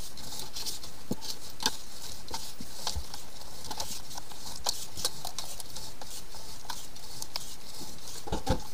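Flexshaft drain-cleaning cable spinning inside a sink drain pipe: a steady hiss with irregular clicks and ticks as the cable rubs and knocks in the pipe.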